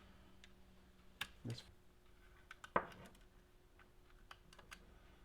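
A handful of light clicks and taps from small hand tools and hardware being worked on an RC truck's suspension link, the loudest a little under three seconds in, over a faint steady hum.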